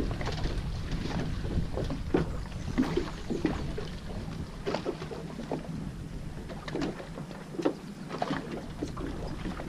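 Water lapping and slapping against the hull of a small boat, with irregular knocks and splashes and a low rumble that fades about halfway through.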